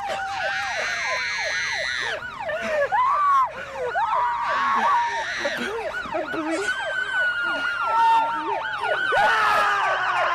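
Several sirens wailing and yelping over one another, their pitch sweeping up and down without pause, mixed with a man's anguished screams. The sound fades out at the end.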